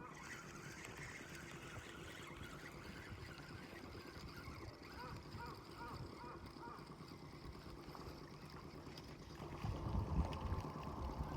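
Small birds chirping over a steady outdoor background hiss. About nine and a half seconds in, a louder low rumble joins, with a steady mid-pitched tone over it.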